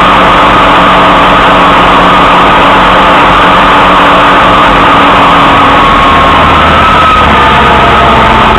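Arctic Cat Wildcat side-by-side driving on a dirt track: its engine runs steadily under a loud rush of wind and road noise that overloads the recording. The engine note dips briefly about six seconds in.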